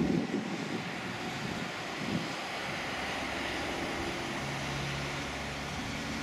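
Twin-engine jet airliner's engines at takeoff power as it accelerates down the runway: a steady rushing noise, with a low hum that sets in about four seconds in. Wind buffets the microphone near the start.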